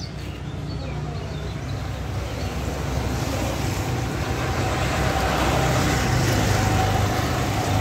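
Bajaj Pulsar 150's single-cylinder engine idling steadily, growing gradually louder.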